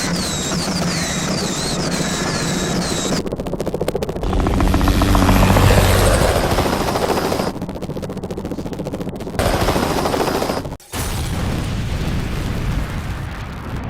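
Cartoon sound effects of flying craft: a steady hum with a repeating high warbling whistle, then a loud low rumble with a fast chopping beat like rotor blades, cut together in several abrupt segments with a brief dropout near the end.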